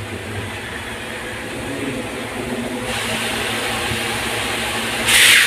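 Water running through a newly installed electric water heater as it is tested: a steady rush over a low hum that grows louder about three seconds in. A sharp, loud hiss follows near the end.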